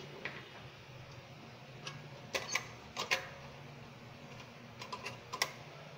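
Sharp clicks and light knocks, several in quick pairs, from an opened-up rice cooker's metal and plastic body being handled and tilted.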